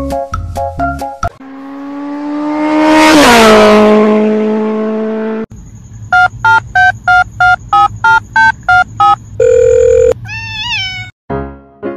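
Brief plucked, marimba-like music, then cartoon sound effects. A long swelling tone rises in pitch, peaks loudly and slides down. Rapid electronic beeping follows at about four beeps a second, like a phone ringing, then a short held tone and a few quick rising chirps.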